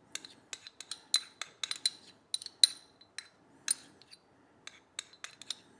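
Metal teaspoon clinking and scraping against small ceramic bowls in quick, irregular taps, scooping apricot jam out of the bowl. Each tap rings briefly.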